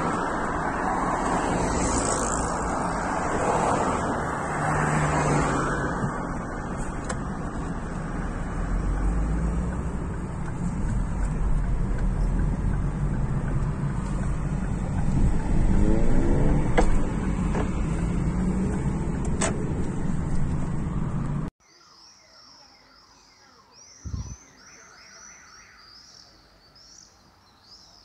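Steady road and engine noise of a moving car heard from inside it, with a brief rising whine about two-thirds of the way through. It cuts off suddenly to a much quieter evening scene: high, rapid chirping from the trees and a single dull thump.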